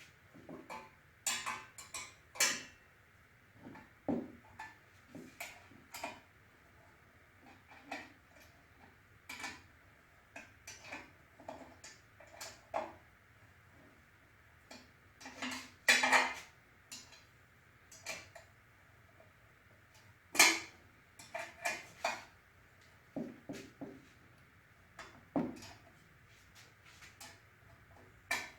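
Hand tools clinking and clicking against metal while screws are tightened into the Shopsmith motor, in irregular sharp knocks with short gaps between them and a few louder clanks.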